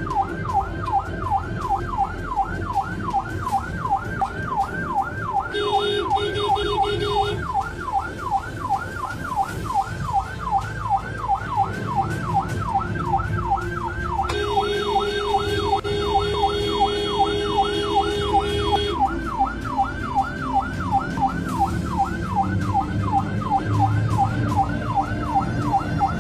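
Ambulance siren on a fast yelp, sweeping up and down about three times a second throughout, heard from inside the ambulance. A horn is sounded over it twice: a short blast about six seconds in and a longer held blast of about four seconds in the middle.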